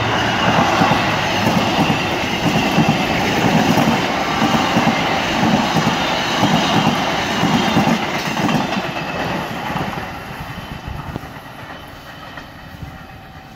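Baggage cars and coaches of a train rolling past at close range, wheels clicking over the rail joints in a repeating rhythm. The sound fades away from about eight seconds in as the end of the train moves off down the line.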